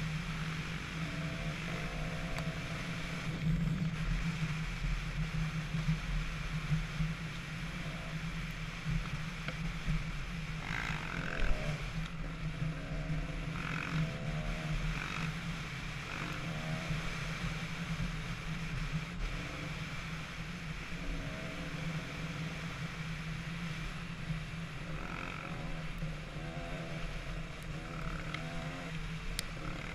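Dirt bike engine running steadily while riding along a dirt road, its note wavering up and down a little with the throttle.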